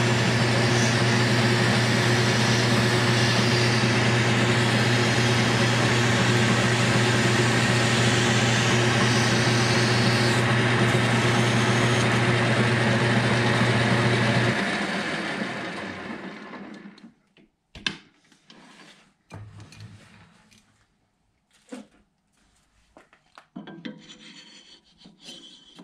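Metal lathe running while abrasive cloth is held against a spinning steel shaft to polish it: a steady low hum under a rasping hiss. About fifteen seconds in the lathe is switched off and winds down over a couple of seconds, then a few light metallic clicks and knocks follow as a gear is slid onto the shaft.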